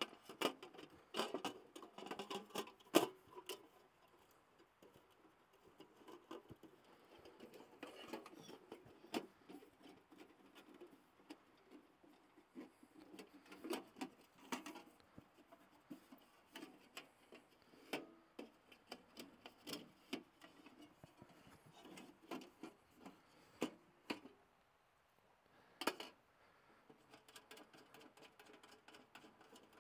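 Thin titanium wood-stove panels and parts being handled and fitted together: scattered light clicks, taps and rattles of metal, with the sharpest knock about three seconds in and another a little before the end.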